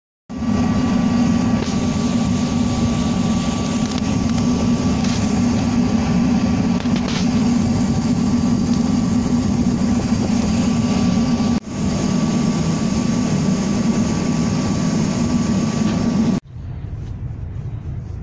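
Fuel-fired forced-air space heater running: a loud, steady burner-and-fan roar with a thin steady whine over it. Near the end it cuts to the quieter hum of a car's cabin while driving.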